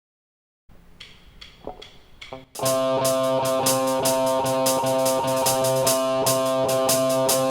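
A worship band's song intro starting: a few quiet notes and taps, then about two and a half seconds in the full band comes in loud with sustained guitar chords and drums on a steady beat.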